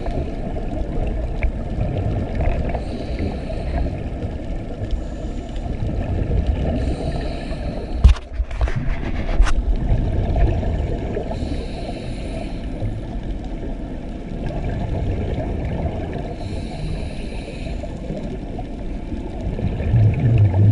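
Muffled underwater rumble and water noise picked up by a submerged camera, with a faint hiss that comes and goes every four or five seconds. A few sharp clicks about eight seconds in are the loudest sounds.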